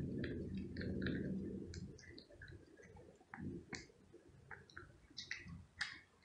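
Cat eating chunks of wet food from a plastic plate: quick, irregular wet smacks and clicks of licking and chewing. A low rumble is loudest during the first two seconds.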